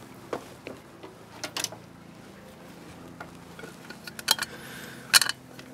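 A few sharp clicks and clatters as the new wiring loom and its connectors knock against the motorcycle's metal frame and handlebars while being fitted, the loudest near the end.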